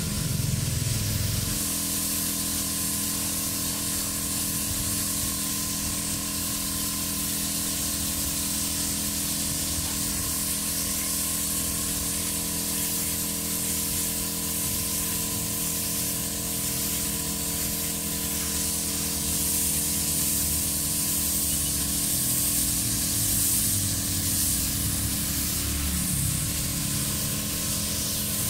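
Spray paint hissing steadily and without a break, over a steady low hum, while the engine covers are spray-painted black.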